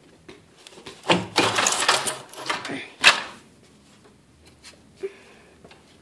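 Clattering and knocking of gear being handled while walking across a concrete garage floor: a dense run of knocks from about one to three seconds in, ending in one sharp knock, then only a few faint taps.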